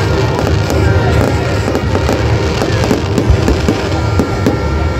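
Fireworks going off: repeated sharp bangs and crackles from aerial shells and a rising fountain, over loud background music.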